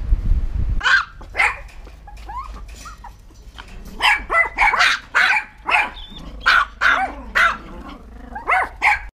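A pack of small Yorkshire terriers yapping in short, sharp, high barks. The barks start about a second in and come thick and fast from about four seconds on. A low rumble fills the first second.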